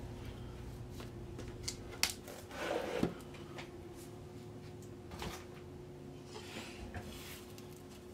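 Vinyl record jackets and packaging being handled: a few light clicks and taps, and a short crinkling rustle about two and a half seconds in that ends in a sharp tap, with softer ticks and rustling later. A faint steady hum runs underneath.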